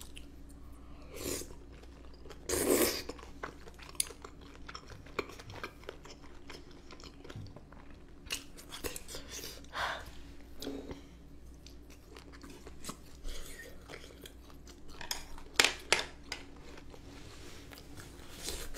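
Close-miked chewing and mouth sounds of someone eating cream-sauced noodles and spicy boneless chicken feet: soft wet clicks and smacks throughout, with a few louder mouth noises about three, ten and fifteen seconds in.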